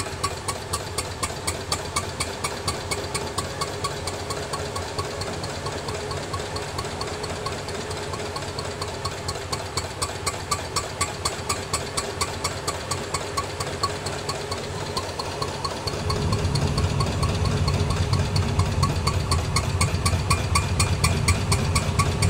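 Arrow C-66 single-cylinder gas engine running at a slow, steady beat, each firing stroke a sharp pulse, as it drives an oil-well pumping unit. The deep rumble grows louder about two-thirds of the way in.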